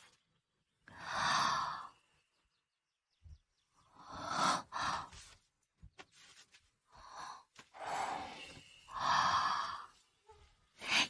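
A person's breathy sighs or heavy exhalations, about five, each lasting around a second, with short silences between them.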